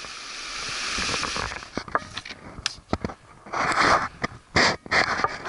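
A mountain creek rushing over rocks, then, after a cut about two seconds in, irregular footsteps crunching and scraping on loose rock scree, with a few louder crunches near the end.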